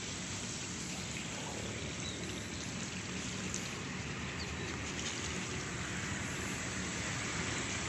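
Steady, even rushing outdoor background noise with no distinct events.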